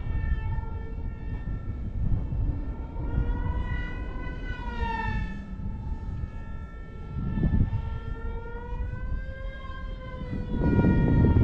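Small RC plane's electric motor and propeller whining in flight, the pitch slowly rising and falling with throttle and distance, over a low rumble that gets louder near the end.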